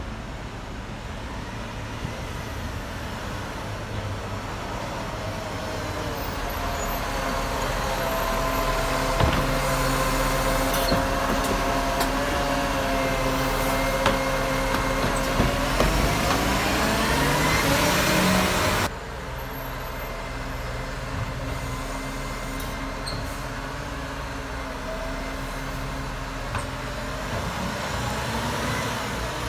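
Iveco Acco Euro6 side-loader garbage truck with its Cursor 9 diesel running while the automated arm grabs and lifts a wheelie bin: a steady engine and hydraulic hum that grows louder, with a few clunks and a rising whine toward its peak. About two-thirds through it drops suddenly to the quieter sound of the truck running as it approaches.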